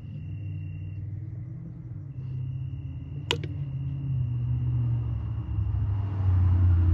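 Low engine rumble of a nearby motor vehicle, growing louder toward the end, over a steady high insect trill that drops out for about a second. One sharp click about three seconds in.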